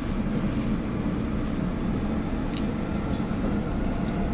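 Steady low rumble of a moving commuter train, heard from inside the passenger car.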